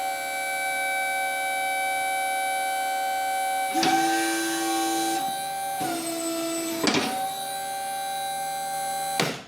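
12-volt electric hydraulic pump (a dump-trailer pump) running with a steady whine while the bender's control lever is worked. The sound changes about four seconds in, drops slightly in pitch near six seconds, and a sharp knock comes near seven seconds. The pump cuts off abruptly just before the end.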